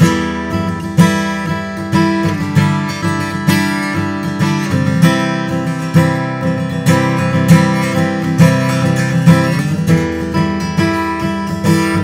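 Martin D-42 Sinker Mahogany acoustic guitar played solo, picked and strummed in a steady rhythm, with chords ringing over a strong bass.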